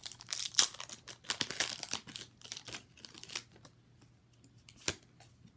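Foil Pokémon booster pack being torn open and crinkled by hand: a dense run of crackling for about three and a half seconds, then a few soft ticks and one sharp click near the end.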